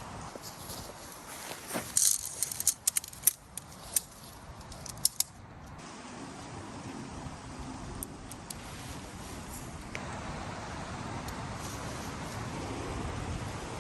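Clothing and gear being handled: a cluster of sharp clicks, jingles and rustles over a few seconds, then a steady hiss of wind that slowly grows.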